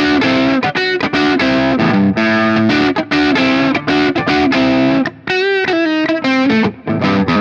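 Electric guitar played with its pickup selector in the middle position: a riff of picked notes and chords, with a note bent and shaken with vibrato about five seconds in.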